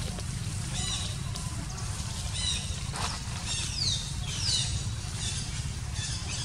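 Birds chirping, with short high calls and a couple of quick falling whistles, over a steady low rumble.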